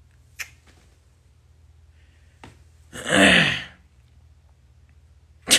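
A person sneezes once, loudly, about three seconds in, after a couple of faint clicks.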